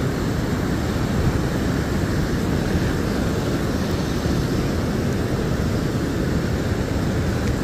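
Steady rushing of churning, foamy river whitewater, an even rumbling noise that does not change.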